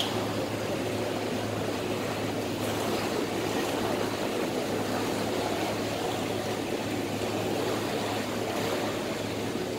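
Steady low hum of a ferry's engine under a constant rushing of water and air, unchanging throughout.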